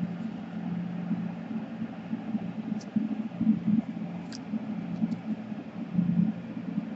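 Steady low hum that wavers in level, with a few faint light clicks in the middle.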